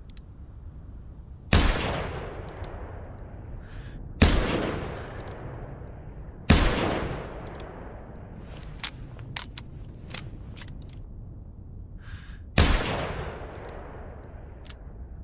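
.44-calibre revolver fired four times, each shot echoing away over about a second and a half. The first three come roughly two to three seconds apart and the fourth after a longer pause, with a few light clicks in the gap.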